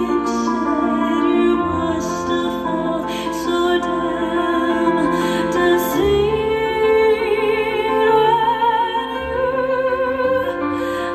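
A woman singing long held notes with vibrato over grand piano chords in a live performance; the chords change about a second and a half in and again about halfway through.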